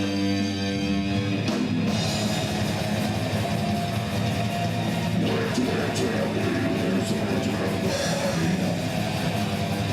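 Instrumental heavy rock music: a held chord rings for about a second and a half, then distorted guitars and drums come in with a dense, steady wall of sound.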